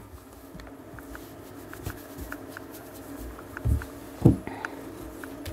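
A hand stroking a long-haired Maine Coon cat's fur, soft rustling and rubbing, with two dull bumps about three and a half and four seconds in.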